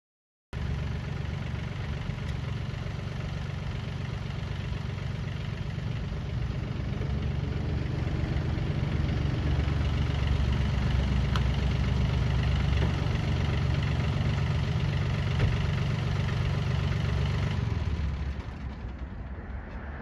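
Yanmar YT235 compact tractor's diesel engine running steadily, picking up speed and getting louder about eight seconds in, then falling away sharply about two seconds before the end.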